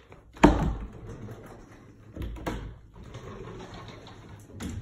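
Hollow bifold closet door being handled and pulled open: a sharp knock about half a second in, scuffing and creaking, and two more knocks, one about two seconds in and one near the end.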